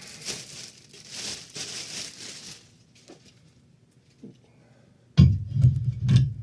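Plastic wrapping crinkling and tearing as it is pulled off a metal speaker stand, for about two and a half seconds. Then a pause with a couple of faint clicks, and a man's voice starts near the end.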